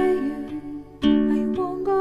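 Background music: plucked-string chords under a gliding melody line, with a fresh chord struck about a second in.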